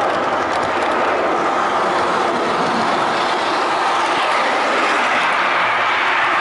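HO-scale model train running along the track, heard close up from track level: a steady, even running noise of motor and wheels on rails.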